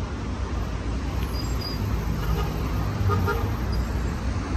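City street traffic noise, a steady low rumble of passing cars, with a short car horn toot about three seconds in.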